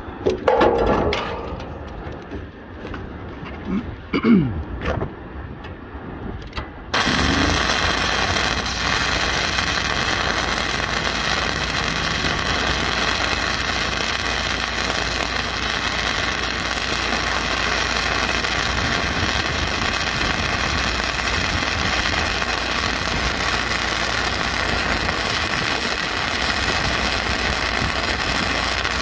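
A few clicks and knocks, then about seven seconds in a self-shielded flux-cored welding arc (Lincoln NR-212 wire, .068 in, vertical up on 6 mm steel) strikes and runs with a steady, even crackle.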